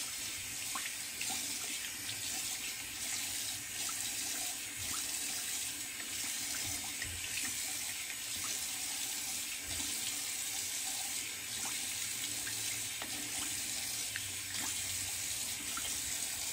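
Sink tap running in a steady stream of cold water for a face rinse after a shave, with small irregular splashes throughout.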